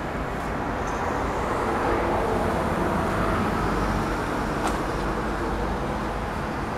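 Steady rumble of city road traffic, swelling a little in the middle, with a single sharp click a little before the end.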